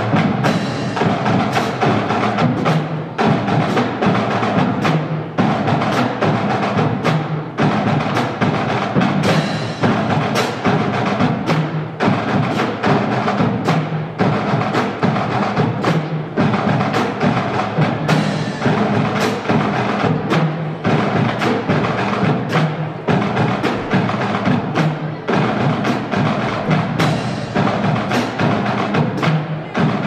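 Marching band drum line playing a steady march cadence on snare and bass drums, with sharp stick strokes in close succession.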